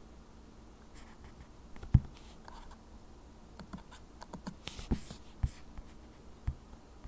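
Scattered light clicks and taps of a computer keyboard and mouse being worked, with one sharper knock about two seconds in and a cluster of clicks near the middle to end.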